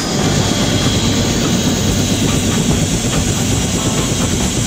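Bell JetRanger helicopter running on the ground with its main rotor turning: a steady rush of rotor and turbine noise, with the rotor downwash buffeting the microphone.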